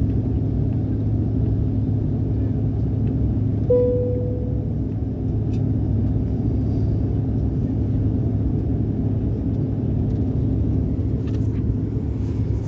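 Steady cabin noise of a Bombardier CRJ900 airliner in flight: a low rumble with a constant hum from its rear-mounted General Electric CF34 turbofans. About four seconds in, a single cabin chime sounds, one clear tone fading over about a second.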